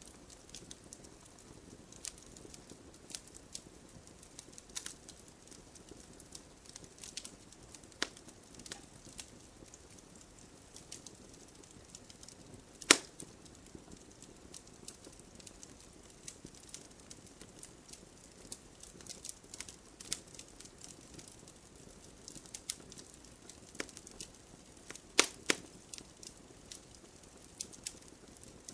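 Wood fire crackling: a low steady hiss with scattered sharp pops. The loudest pop comes about thirteen seconds in, and a quick pair comes about twenty-five seconds in.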